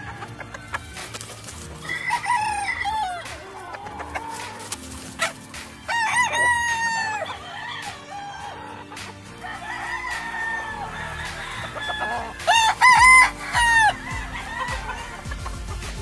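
Gamefowl roosters crowing several times. The loudest crow comes near the end.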